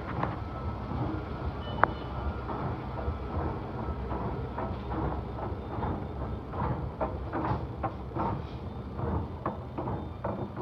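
Mitsubishi escalator running with an abnormal, irregular clattering and knocking over a steady low rumble, with one sharp click about two seconds in. The noise is suspected to come from the escalator's ageing.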